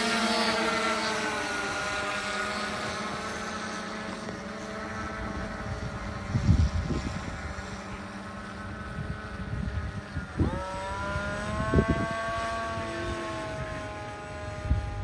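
Electric motors and propellers of a quadplane VTOL humming as it hovers and climbs, the pitch drifting down over the first few seconds. About ten seconds in, a second, higher propeller whine rises sharply and holds: the T-Motor 2820 880 kV tail pusher motor with its 12-inch propeller spinning up for the transition from drone to plane mode. A few low thumps of wind on the microphone come in between.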